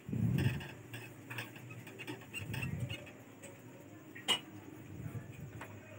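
A whiteboard being wiped with a cloth duster: soft rubbing strokes, the strongest at the start and again midway, with one sharp tap a little after four seconds.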